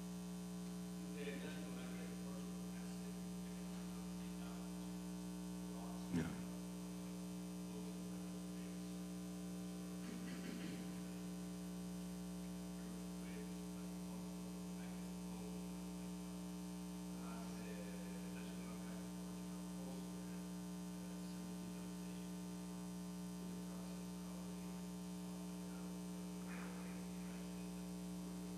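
Steady electrical mains hum from the sound system, with a faint off-microphone voice now and then and a single sharp knock about six seconds in.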